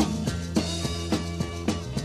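Band music from a 1972 studio demo recording: a drum kit keeps a steady beat of about three or four hits a second over a held bass line, with no singing.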